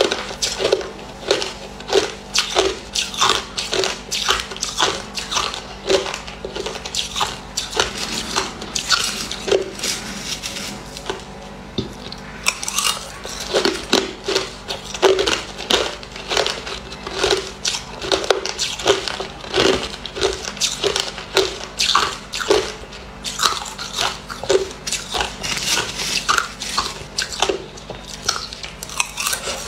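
A person chewing a mouthful of crushed ice, a fast run of sharp crunches, about two to three a second, thinning out briefly around the middle.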